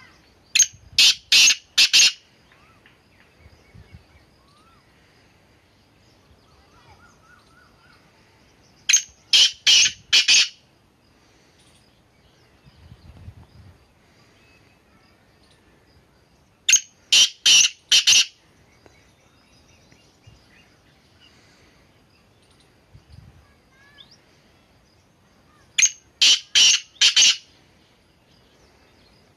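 A caged black francolin (kala teetar) gives its loud, harsh territorial call four times, each call a quick run of about five grating notes over a second and a half, repeated every eight or nine seconds.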